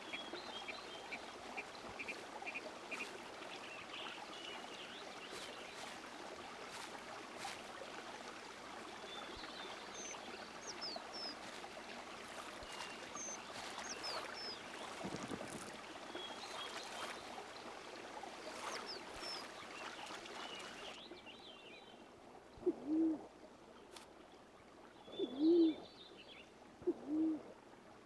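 A steady rushing background with small birds chirping faintly high up, which stops suddenly about three quarters through. It is followed by a pigeon's low, soft cooing, several short coos a second or two apart.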